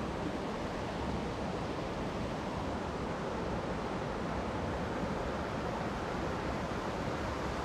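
Steady rush of a rocky mountain creek flowing over stones and riffles.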